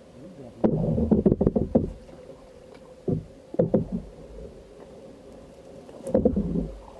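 Wooden canoe being poled along, with knocks and thuds on the hull in several clusters, the busiest about a second in and another near the end.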